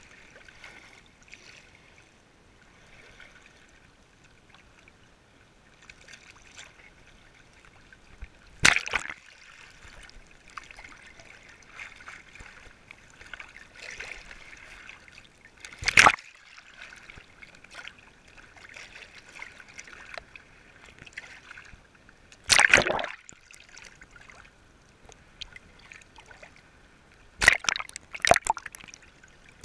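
Small sea waves sloshing against a camera floating at the water surface. A low, steady wash is broken by loud splashes as waves break over it: one about a third of the way in, one near the middle, one about three-quarters through, then several in quick succession near the end.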